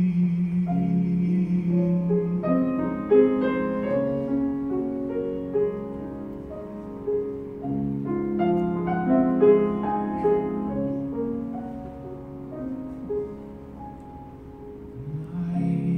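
Piano playing a slow, gentle instrumental passage between sung lines, with chords and a melody of single notes. A held sung note trails off in the first second or so, and the playing grows softer near the end.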